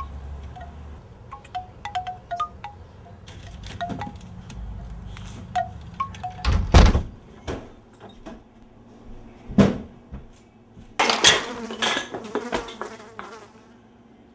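Wind chime tinkling with scattered single notes through the first half. Later come a few loud knocks, then a stretch of paper rustling as magazine pages are handled near the end.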